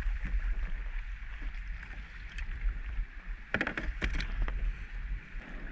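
Wind buffeting the microphone with a steady low rumble, over small waves lapping against a kayak hull. A short burst of louder noise comes about three and a half seconds in.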